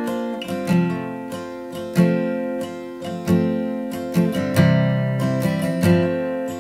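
Background music: acoustic guitar strumming chords, with a fresh strum about every second and no singing yet.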